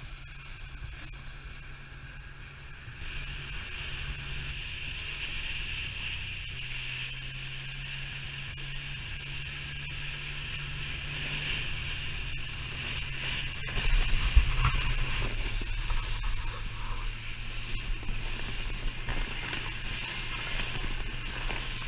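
Snowmobile engine droning steadily ahead while the sled it tows slides over packed snow with a steady hiss; the engine pitch shifts a little, and there is a louder low rumble for about a second around two-thirds of the way through.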